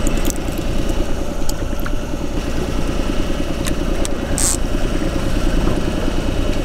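Boat engine running steadily at trolling speed, with a fast even pulse. A few light clicks come from the trolling reel as line is let out, and there is a short hiss about four seconds in.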